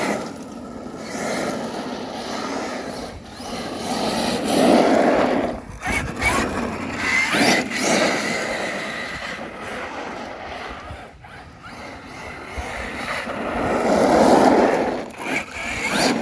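Arrma Kraton 8S electric RC truck driving on pavement: its brushless motor and tyres run across the pavement, swelling loudest twice as the truck comes close.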